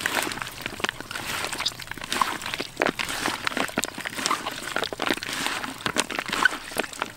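Wet squelching and slapping of skinned frogs being squeezed and mixed by hand in a plastic basin, a quick, irregular run of small wet clicks.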